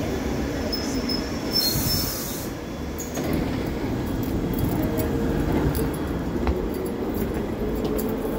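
London Underground Piccadilly line 1973 Tube Stock train coming to a stop: brakes squeal thinly, then a hiss of air about two seconds in. The doors open and the train stands with a low rumble and scattered clicks.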